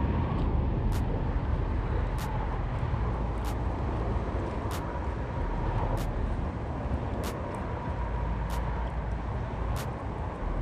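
Steady low rumble of wind on the microphone, with a sharp faint tick repeating evenly about every second and a quarter.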